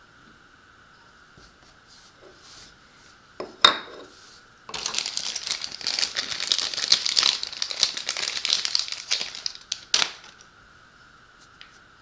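Crinkling of a small plastic parts bag being handled, for about five seconds, with a sharp click just before it and another as it stops.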